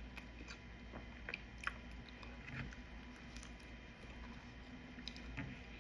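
A person chewing a mouthful of loaded fries with bacon and cheese, faint irregular small crunches and clicks close to the microphone.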